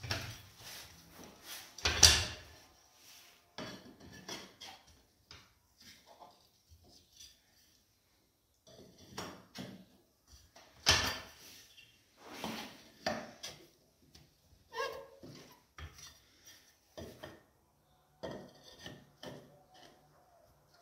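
Glazed ceramic wall tiles clinking and knocking as they are handled and pressed into tile adhesive, with some light scraping. The sounds are irregular light clicks and clacks, the loudest about two seconds in and again about eleven seconds in.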